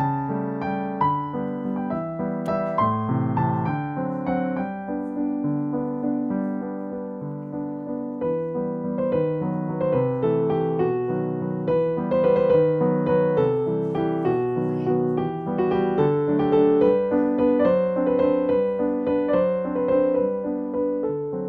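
Background piano music: a gentle, flowing melody over chords.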